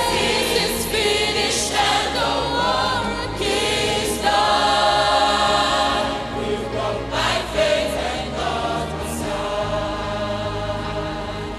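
Mixed gospel choir singing together into microphones, over steady low bass notes; the sound eases down somewhat over the last few seconds.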